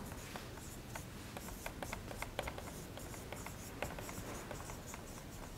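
Felt-tip whiteboard marker writing on a whiteboard: a quick, uneven run of short, faint strokes as a line of words is written out.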